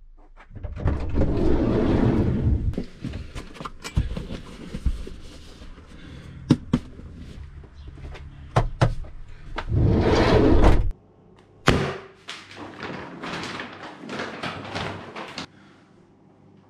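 A campervan's sliding side door rumbles open, followed by scattered knocks and clunks as gear is moved about inside the van, and another loud rolling slide about ten seconds in. After that comes a click and a run of crackling from a large paper map being handled.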